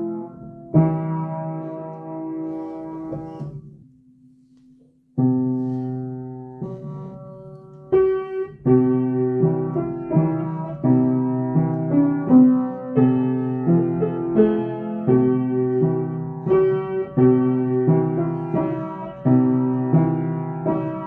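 Piano playing sustained block chords. It fades out and falls silent briefly about four seconds in, then resumes with a steady run of chords struck about once or twice a second.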